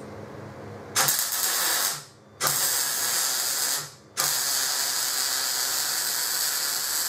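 MIG welding arc sizzling as a bead is run on steel box section. It starts about a second in, breaks off twice for under half a second, then runs on steadily.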